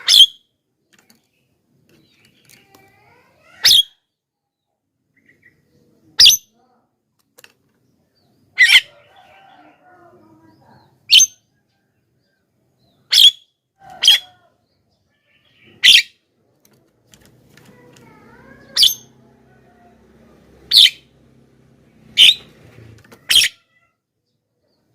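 Javan myna calling: about a dozen short, loud, sharp calls, one every one to two and a half seconds, with faint softer chattering between them.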